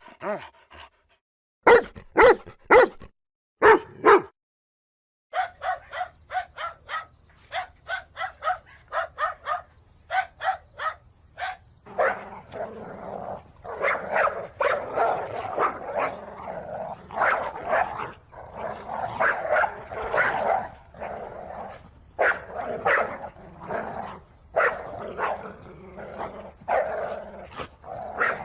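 Dogs barking in a string of separate recordings: first a few loud single barks, then after a short break a quick run of short, higher yaps, then a long, dense stretch of overlapping barking and yelping.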